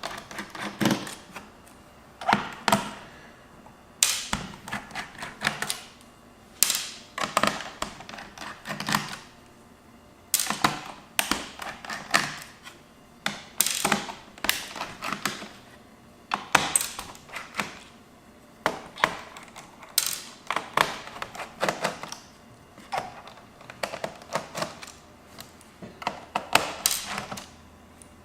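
Irregular clusters of sharp clicks and taps as short screws are backed out of the plastic underside of a laptop with a screwdriver and set down, with knocks of the tool and the casing being handled.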